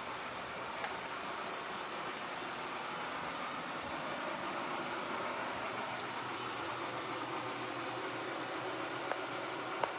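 Vintage Whirlpool refrigerator running: a steady hum and hiss, with a few faint clicks.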